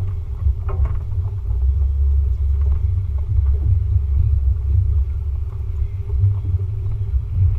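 Low, steady rumble of a vehicle driving slowly along a muddy, rutted forest trail, with a few knocks in the first second.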